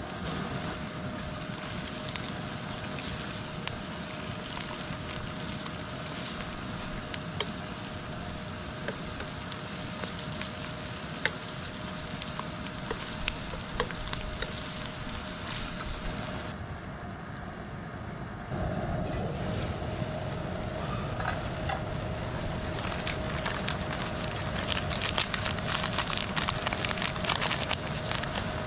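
Sliced ham sausage sizzling and spitting in a wok over a small wood-burning camp stove, with frequent crackling pops and a steady hum underneath. The sizzle thins briefly about two-thirds through, then the popping grows denser near the end.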